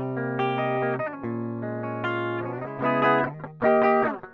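Epiphone Les Paul Studio electric guitar played through a clean tone on its bridge pickup. Picked notes and ringing chords, with two louder chord strikes in the second half.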